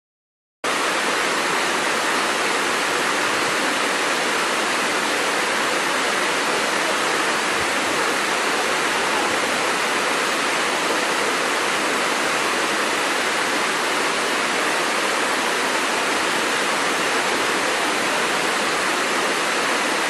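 Steady rushing of a waterfall cascading over rocks: a dense, even hiss of falling water with little deep rumble. It starts abruptly about half a second in.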